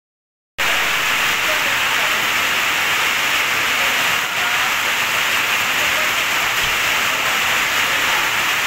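Heavy rain pouring down in a steady hiss. The sound drops out completely for about half a second at the start.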